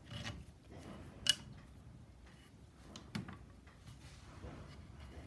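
Faint handling noise of hands tying a knot in cord around a wooden loom upright, with a sharp click about a second in and a softer knock about three seconds in.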